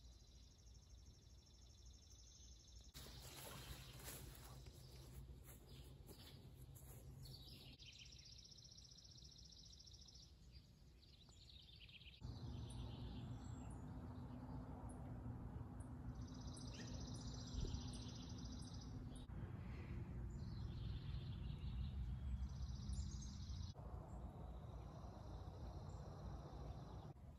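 Faint outdoor ambience: birds singing in short trilled phrases over a low rumble. The background changes abruptly several times.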